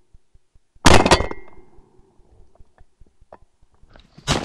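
Shotgun shots: a loud sharp report about a second in that rings off over about a second, and another near the end with a long echoing tail.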